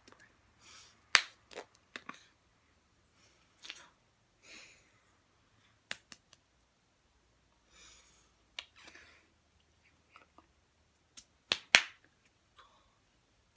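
Hands clapping, tapping and brushing against each other during sign language: irregular sharp slaps, two of them loudest, about a second in and near the end, with soft rubbing swishes between.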